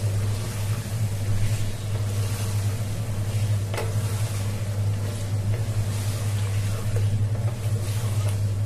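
Raw chicken pieces being stirred with a spatula in a pot of hot oil and spice paste: sizzling with occasional spatula scrapes against the pot, over a steady low hum.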